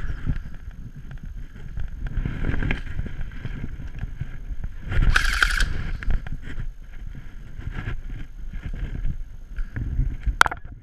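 Low rumbling wind and handling noise on the microphone, with a short loud burst about five seconds in and a brief rising whistle near the end.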